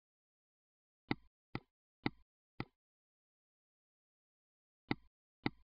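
Computer mouse clicks: four about half a second apart, then two more near the end, each press followed by a fainter tick.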